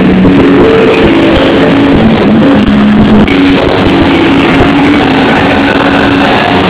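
Loud, distorted dance music, a melody of held notes changing pitch every fraction of a second over a dense noisy wash.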